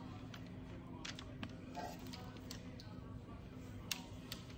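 A wooden spoon scraping and tapping against a small metal saucepan as hot candy syrup is poured out in drops. Scattered light ticks and clicks, the sharpest near the end, over a steady low hum.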